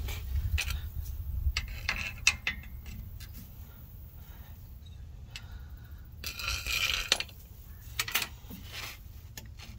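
Irregular metallic clinks and scrapes of a steel pry bar working against the exposed ring gear and differential carrier, checking the carrier for play. The loudest clinks come about two seconds in and about seven seconds in.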